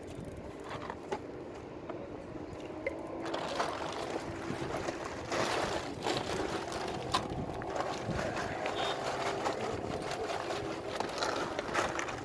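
Seawater lapping and gurgling at the shoreline, with a faint steady hum underneath and a few small clicks.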